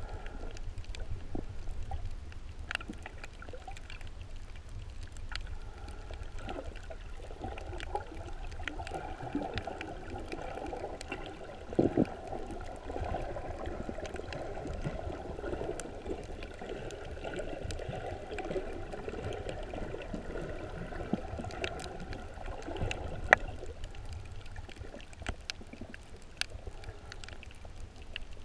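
Underwater ambience heard below the surface: muffled, steady water noise and a low rumble, with scattered sharp clicks and crackles. Two louder knocks come about twelve seconds in and again about twenty-three seconds in.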